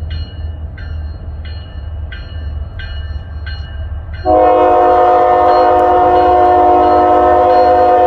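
Kansas City Southern diesel locomotive approaching: its bell rings about every 0.7 s over the low rumble of the engine, then about four seconds in its multi-chime air horn sounds one loud, sustained blast.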